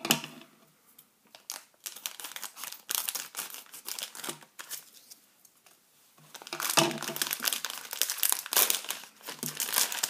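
A crinkly plastic blind-bag packet rustling and crinkling as it is cut with scissors and pulled open, in irregular spells with short pauses. It is loudest in the last few seconds.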